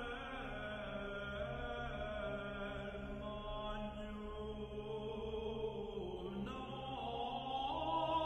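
Voices chanting a slow melody in long, drawn-out notes.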